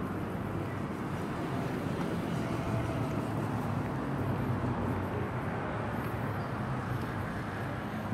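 Steady city street ambience: a continuous low hum of traffic and urban noise.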